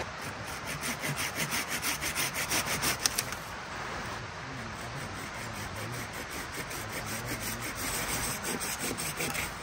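Hand saw cutting through a birch branch in quick back-and-forth strokes, about three a second, heavier for the first three seconds, then lighter strokes keep on.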